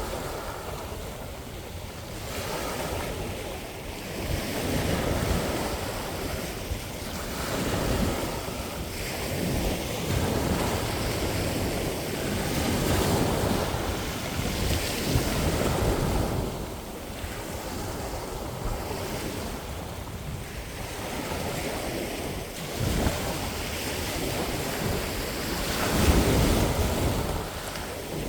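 Sea waves washing ashore, the surf swelling and falling back every few seconds, with wind on the microphone. The loudest surge comes near the end.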